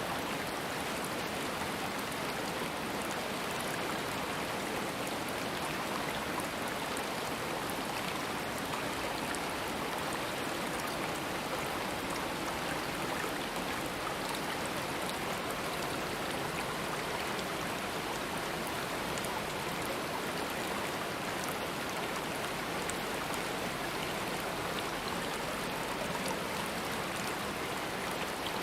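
A stream of running water, a steady even rush with small splashes and drips flecking the top.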